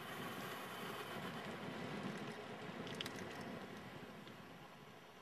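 Wind and road noise from an electric bicycle rolling downhill on asphalt: a steady rushing that slowly fades toward the end, with a single click about three seconds in.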